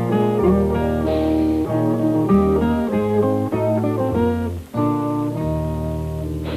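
Background music from the cartoon's score: a gentle plucked-guitar tune over a bass line, with the notes changing about every half second.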